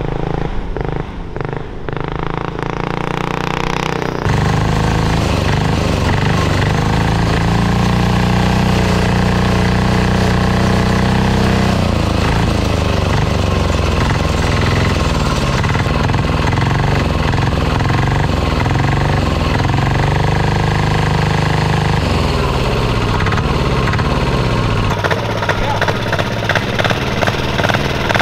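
Small single-cylinder turbocharged diesel go-kart engine running hard under load with a heavy clatter, its pitch rising and falling as it revs. The owner hopes the hard clacking is the fuel pump and not a rod. It starts quieter, gets loud about four seconds in, and near the end drops to a slower knocking idle.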